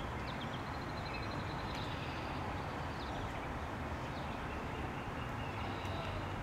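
Steady outdoor pond ambience: a constant low rumble with faint, short, high chirps scattered through it, and a quick even trill about half a second in.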